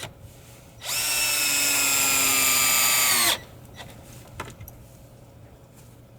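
Power drill running in one burst of about two and a half seconds, a steady whine that dips slightly in pitch just before it stops abruptly. A few faint clicks follow.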